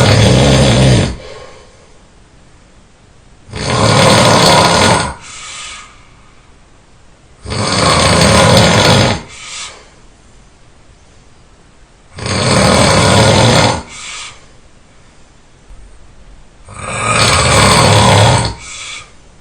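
A person snoring loudly in a steady rhythm: five long snores about four seconds apart, each lasting about a second and a half and followed by a short, fainter sound.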